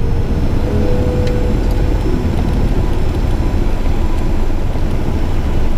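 Cockpit noise of a Cessna Citation V business jet rolling off the runway after landing: a steady low rumble with the hum of its twin turbofan engines.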